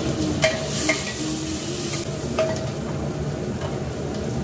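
Steel ladle stirring in a steel pressure cooker, clinking against the pot three times, over the steady sizzle of cumin seeds frying in hot ghee for a tadka.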